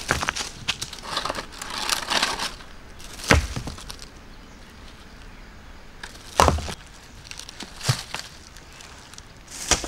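Hands scraping and rustling through dry leaf litter and soil in short bursts, with three dull thumps spread through the middle and later part.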